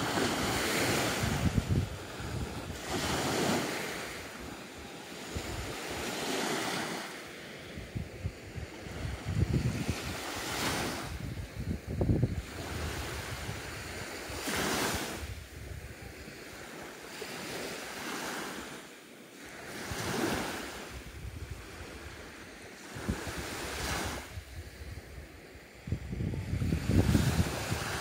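Small Baltic Sea waves breaking and washing up a sandy beach, one swell of surf every few seconds. Wind rumbles on the microphone, strongest near the end.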